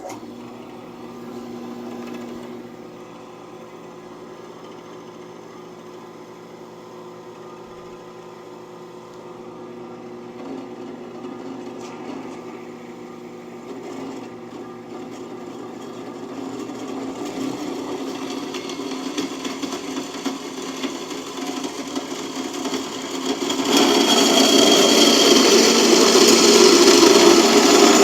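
Metal-cutting band saw running and cutting through steel tubing: a steady motor and blade sound that grows louder over the second half and is loudest for the last four seconds.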